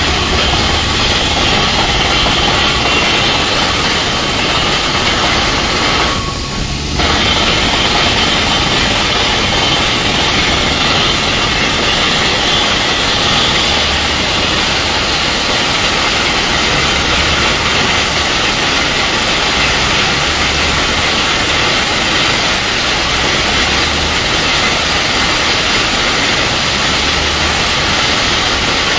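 Truck-mounted water well drilling rig running under test: its diesel engine and high-pressure air compressor make a loud, steady rushing noise over a low engine hum. The sound dips briefly about six seconds in.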